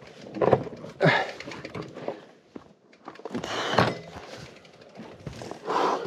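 Loaded fatbike jolting over a rough forest trail: four separate heavy thumps and rattles as it hits roots and bumps.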